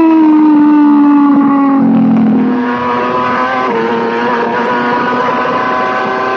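Racing motorcycle engine running hard, its revs falling slowly over the first two seconds or so, then holding steadier and climbing slightly.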